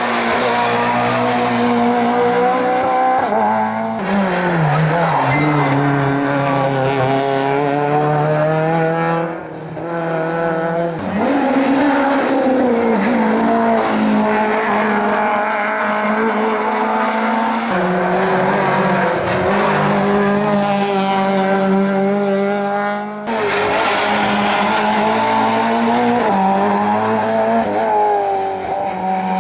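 Hillclimb race cars driven flat out, one after another: engines rev up hard, drop at each gear change and climb again.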